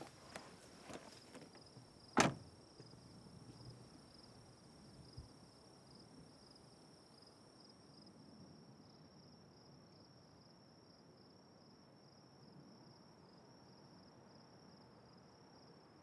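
Crickets chirping steadily in a quiet night ambience. A few soft rustles come in the first couple of seconds, then a single sharp knock about two seconds in.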